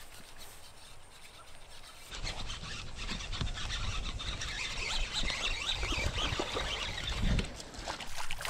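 Fishing reel being cranked close to the microphone during a retrieve: a dense run of small clicks and rubbing that starts about two seconds in, with a low thump near the end.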